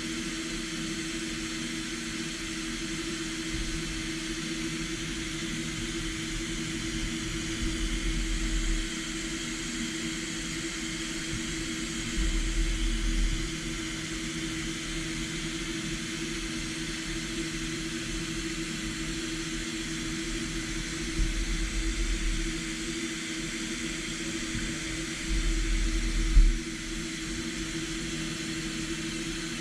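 DMG MORI M1 CNC vertical milling machine running, with a steady spindle tone and a high hiss, milling a steel part. A low rumble swells several times for a second or two, with a sharp jolt near the end of one swell.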